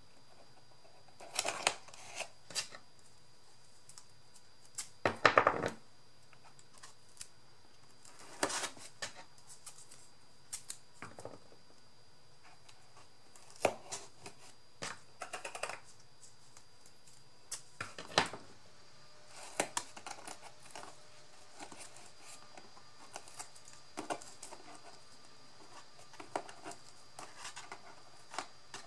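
Scissors snipping paper and card, with paper rustling as the pieces are handled: scattered short snips and crackles, the loudest about five seconds in.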